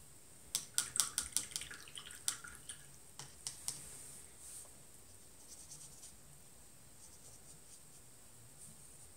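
A paintbrush being rinsed in a water jar, knocking against the jar's side. A quick run of sharp clicks about five a second slows and fades after three and a half seconds, with a few faint ticks a little later.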